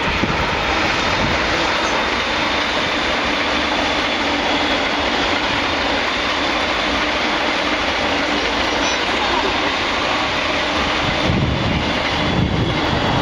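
Freight train running past with a steady, loud rolling rumble of wheels on rail.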